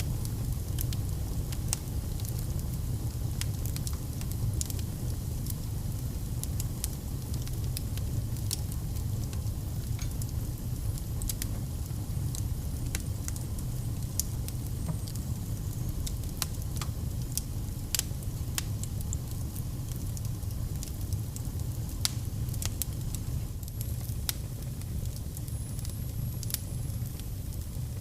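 Fire burning in a fireplace: irregular sharp crackles and pops over a steady low rumble, with a few louder pops partway through.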